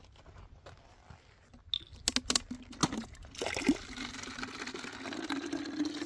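A few sharp clicks and knocks, then water running from a brass tap into a plastic bottle, the low tone of the filling bottle creeping slightly upward.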